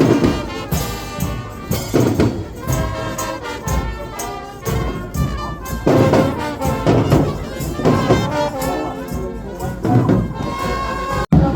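Brass band playing with drums: sustained horn notes over a steady beat, cutting off suddenly near the end.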